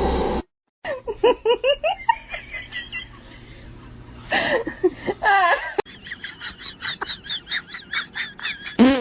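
Laughter in quick repeated bursts, easing off about two seconds in and picking up again later.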